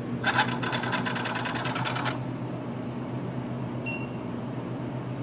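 Vending machine bill acceptor's motor pulling in a bill, a rapid rhythmic whirring clatter for about two seconds that stops abruptly. After that comes a steady electrical hum, with one short high beep just before four seconds in.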